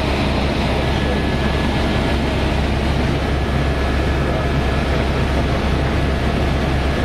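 Helicopter cabin noise in flight: the engine and rotors make a steady, loud drone with a deep low rumble that does not change.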